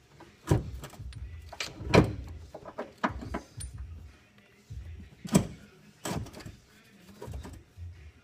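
A replacement car battery being fitted into the engine bay: a series of separate clunks and knocks from the battery, cables and clamp being handled, the loudest about two seconds in and again near the middle.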